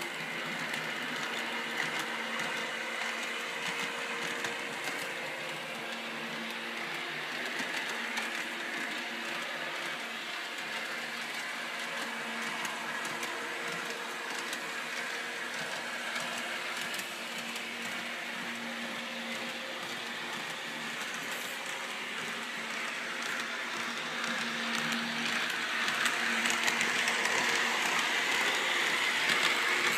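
Electric model trains running on metal track: a steady motor hum with the rolling rattle of wheels on the rails. It gets louder near the end as a locomotive passes close by.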